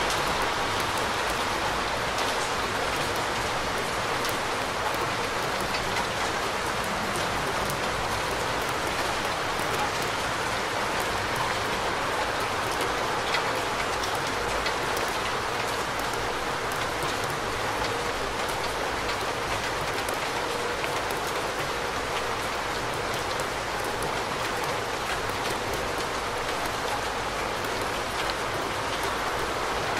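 Steady rain falling: an even hiss dotted with the ticks of individual drops.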